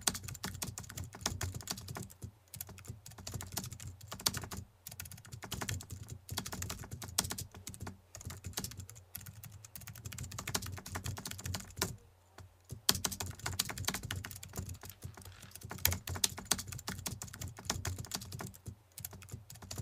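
Computer-keyboard typing sound effect: a long run of quick, light key clicks in an uneven rhythm, with a brief pause about twelve seconds in.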